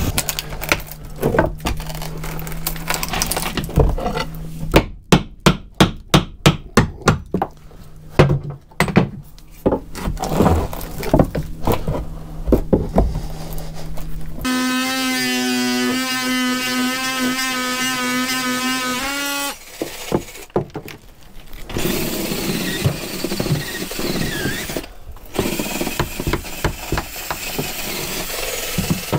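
Small electric finger belt sander running with a steady hum against wooden hull frames, with many sharp knocks, including a quick run of strikes a few seconds in. Midway another power tool runs steadily for about five seconds. Near the end a hammer knocks and scrapes at a wooden frame.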